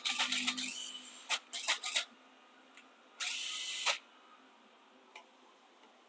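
A quick run of clicks and knocks from a handheld power tool being handled, then a short steady hiss lasting under a second, about three seconds in.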